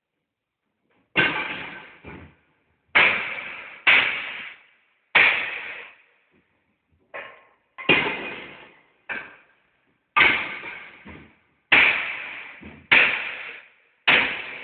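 Hammer blows breaking up an old floor heater grate: about a dozen sharp, ringing strikes at roughly one a second, a few of them lighter, each dying away within about half a second.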